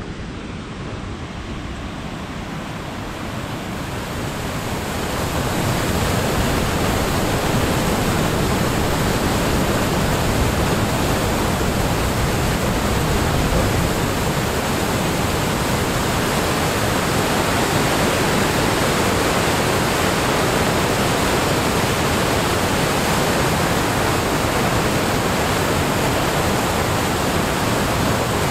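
Steady rushing roar of river rapids and falls in a rocky gorge below. It grows louder over the first five seconds or so, then holds steady.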